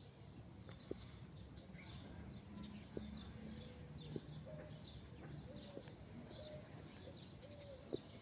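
Birds chirping, many short high chirps and quick sweeps overlapping, over a faint low rumble, with a few sharp clicks.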